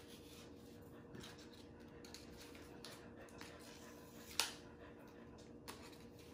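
Quiet room tone with faint rustling of a paper plate and wool yarn being threaded through its punched holes, and one sharp tap about four seconds in.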